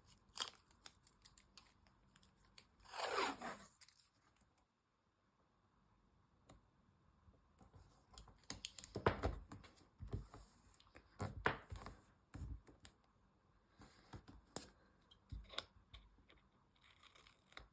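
Washi tape pulled off its roll with a short rip about three seconds in, then faint handling of paper and tape: scattered small clicks and taps as it is laid and pressed along a journal page.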